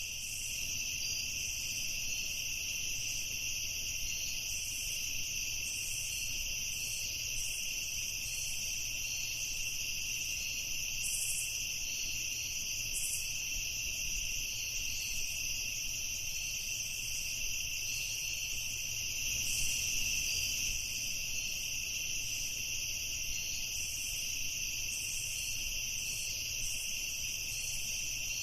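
Night-time insect chorus: a steady, continuous high-pitched trilling, with short irregular chirps from other insects above it and a faint low rumble underneath.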